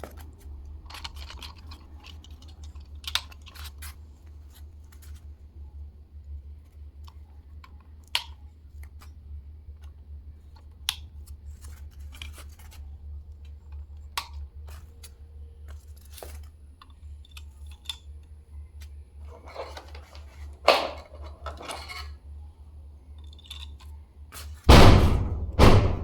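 Plastic toy pieces being handled and fitted together, with scattered small clicks, taps and rattles over a steady low hum. Near the end there is a loud, heavy thump.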